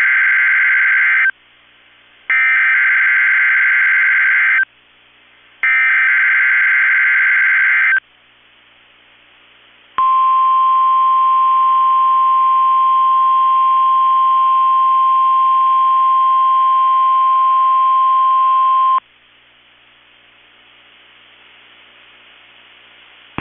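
NOAA Weather Radio SAME alert header: three buzzy digital data bursts, each about two and a half seconds long with about a second between them, the first already underway. After a short gap, the 1050 Hz warning alarm tone sounds as one steady high beep for about nine seconds and cuts off sharply, followed by faint hiss. This is the signal that sets off weather alert radios, sent here as a required weekly test.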